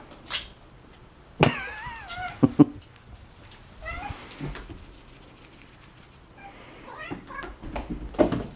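Domestic cat meowing several times: one long, wavering meow about a second and a half in, then shorter meows around four and seven seconds. Two sharp knocks follow the first meow, and a cluster of knocks and thumps comes near the end.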